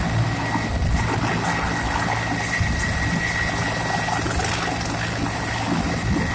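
Helicopter running on the ground with its main rotor turning: a steady turbine whine over a low, even rotor-and-engine noise.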